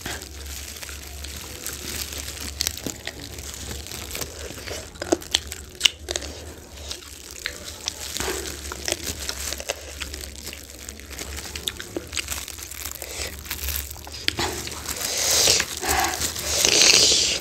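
Close-up eating sounds: biting and chewing saucy chicken wings and momos, with the crinkle of clear plastic disposable gloves and many small wet mouth clicks. A louder, hissy stretch of noise comes near the end.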